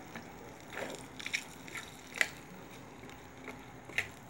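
A few light clicks and soft wet sounds from a spatula moving through a pan of chicken, potato and carrot stew in watery broth. The clicks are scattered, about five in all.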